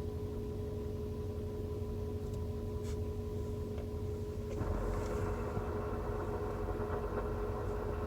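2013 Mazdaspeed3's turbocharged four-cylinder idling with a steady whine. A little past halfway a rougher, louder noise joins in. This is the noise the car makes whenever the clutch pedal is released, and a new clutch, a checked dual-mass flywheel and new gearbox bearings have not cured it.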